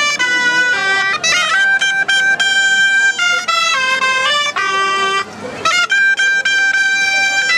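A medieval-style town waits band playing a tune on loud, reedy or brass-like wind instruments, in more than one part, with notes changing several times a second. A brief dip comes about five seconds in.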